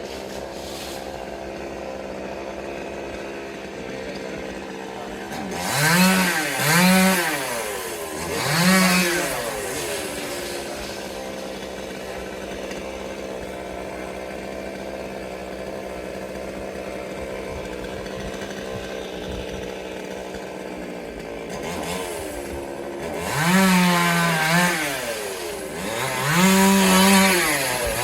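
Two-stroke chainsaw idling steadily, revved up and back down in short bursts: a few times about six to nine seconds in, then again several times near the end.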